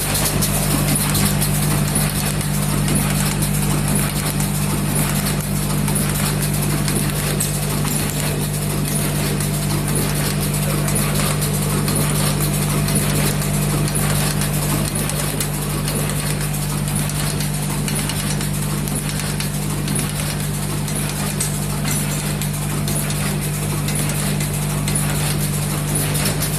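Automatic packing machine running, bagging red envelopes in plastic: a steady motor hum under a continuous rhythmic mechanical clatter.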